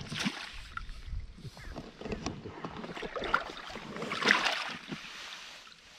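Water splashing and sloshing as a hooked bream is drawn into the landing net and lifted, loudest at the start and again about four seconds in.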